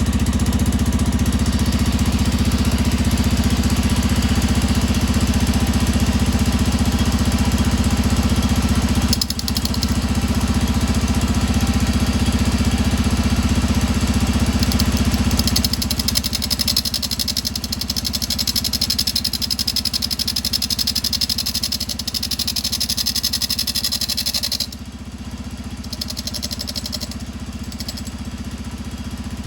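Honda TLR200 single-cylinder four-stroke engine running steadily in gear, spinning the rear sprocket, while an angle grinder grinds down the welded-on sprocket. The engine sound drops back a little past halfway, and the grinding cuts off suddenly near the end.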